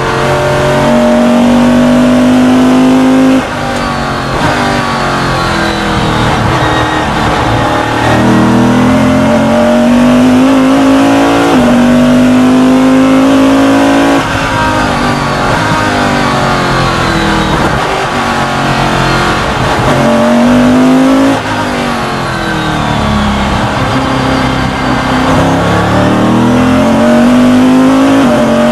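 Superlite Eagle Coupe race car's engine heard from inside the cockpit at full racing pace. The revs climb again and again, with sharp breaks at the gear changes. The engine goes quieter for a moment about 3.5, 14 and 21 seconds in, as the driver lifts off for the braking zones.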